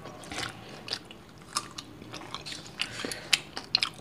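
Close-up eating sounds: people biting and chewing food, with irregular wet mouth clicks and small crunches.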